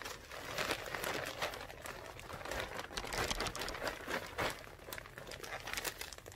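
A plastic potting-mix bag crinkling as it is handled and tipped, with loose potting mix pouring out into a felt grow pot.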